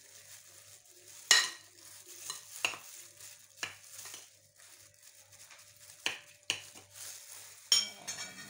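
Minced beef being mixed by hand in a glass bowl with a plastic-gloved hand: soft wet squishing and plastic rustle, broken by a few irregular sharp clicks, the loudest about a second in and near the end.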